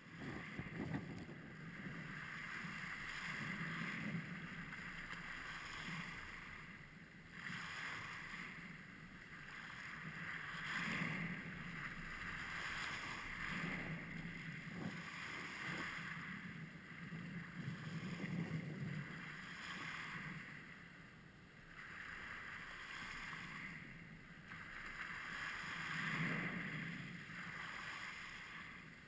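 Small lake waves breaking and washing up over a beach of rounded pebbles, the wash swelling and ebbing every few seconds.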